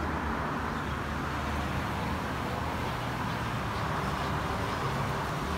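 Steady hum of road traffic, an even wash of passing-car noise with no distinct events.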